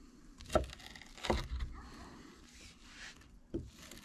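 A knife cutting through a crisped-pita gyro pizza on a cutting board: three short knocks and crunches, with a scraping rustle after the second.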